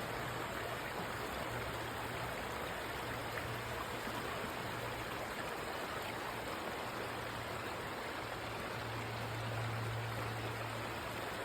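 River water rushing steadily over rock at natural water slides, an even hiss of flowing water with a steady low rumble underneath.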